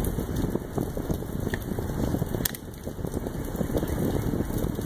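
Steady crackling patter of rain on and around the phone's microphone, with one sharp click about two and a half seconds in.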